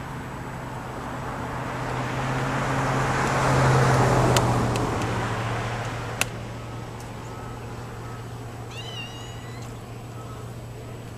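A vehicle passes, its noise swelling to a peak about four seconds in and fading away by about six seconds, with a sharp click near the end of it. About nine seconds in, a cat meows once, briefly.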